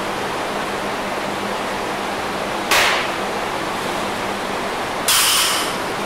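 A steady rushing hiss, broken twice by a short, hard gasp for breath from a lifter winded by a heavy set: once about three seconds in, and again about five seconds in, a little longer.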